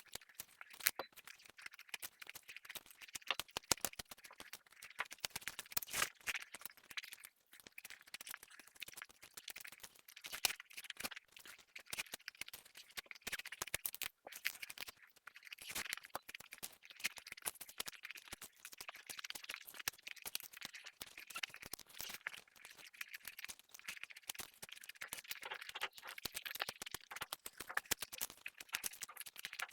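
Close-miked eating sounds: chewing with a dense, irregular run of wet clicks and crackles that goes on without a break.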